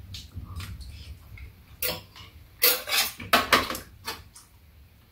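Spoons and chopsticks clinking and scraping against bowls and a frying pan during a meal of fried rice: scattered light clicks, with a run of louder scrapes about three seconds in.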